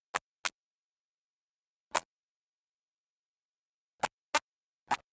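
Six short, sharp click sound effects over dead silence: two in quick succession at the start, one about two seconds in, and three close together near the end. They are cartoon effects for an animated logo whose eyes move.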